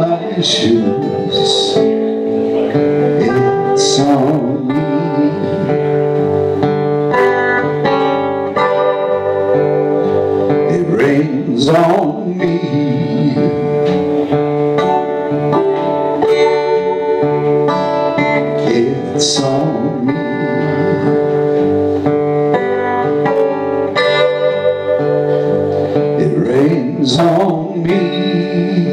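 Two acoustic guitars played together live, plucked notes ringing over a steady accompaniment.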